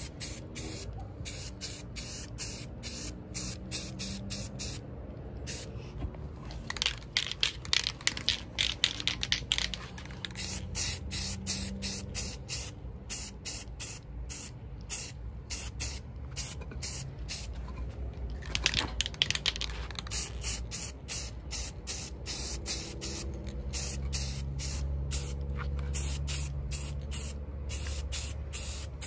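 Aerosol spray-paint can hissing in many short, repeated bursts as a light coat of paint goes onto a bare steel moped frame.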